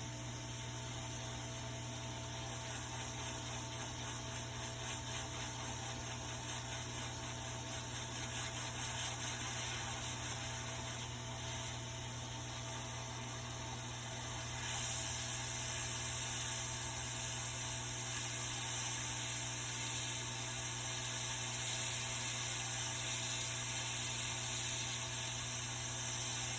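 Electronics rework bench equipment running: a steady hum under an even airy hiss, with the hiss growing brighter and slightly louder about halfway through.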